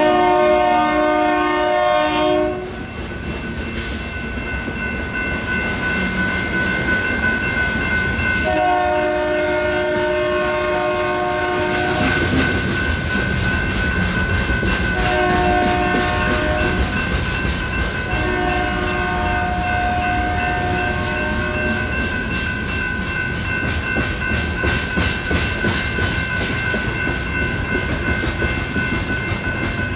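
Union Pacific locomotive horn sounding the grade-crossing signal of long, long, short, long blasts: a multi-note chord, with the short blast about fifteen seconds in. Under it, the crossing's electronic bells ring steadily, and after the last blast the coal train's wheels clack over the rails as it rolls through.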